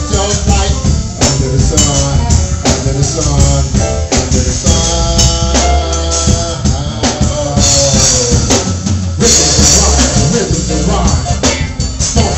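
Live funk band playing: a steady drum-kit beat with a heavy bass low end, electric guitar and keyboard.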